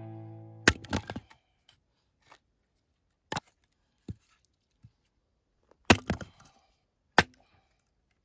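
Hatchet splitting firewood: separate sharp cracks as the blade strikes and splits the wood, the loudest about a second in, about six seconds in and about seven seconds in, with a few quieter knocks between.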